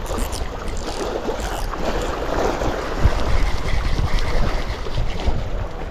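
Gusty wind buffeting the microphone, over choppy lake water lapping against a rocky shore.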